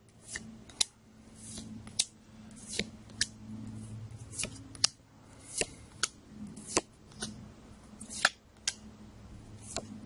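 Trading cards being flipped off a deck one at a time, each making a sharp snapping click, irregularly about one to two a second, with a soft rustle of card stock between.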